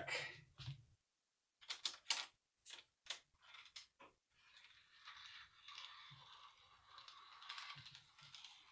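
A quick run of faint, light clicks, then a soft rustle: a plastic model railway car being handled and fitted onto its track.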